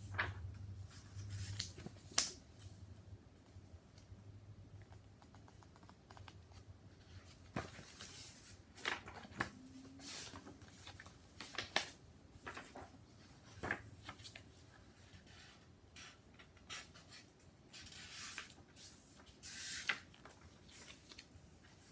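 Paper and the pages of a picture book being handled and turned: scattered soft rustles and sharp clicks, with a longer rustle near the end.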